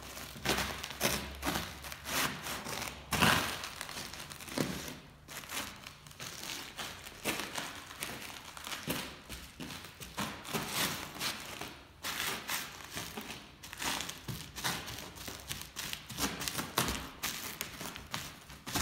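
Sourdough bread crust and crumbs crunching and crackling under leather boots as they step on and grind the loaf into the floor. The crackling is irregular and continuous, with a few louder crunches, the loudest about three seconds in.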